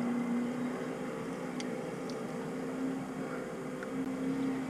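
A steady low mechanical hum with an even background hiss and a few faint ticks.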